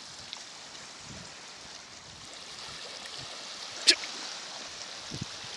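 Small sea waves washing and lapping on a sandy shore as a steady wash of water, with one short sharp click about four seconds in.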